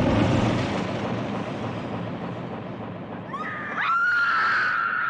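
A shotgun blast through a car windshield hits right at the start, its noise dying away slowly over a few seconds. About three and a half seconds in, a woman starts screaming: one long, high scream.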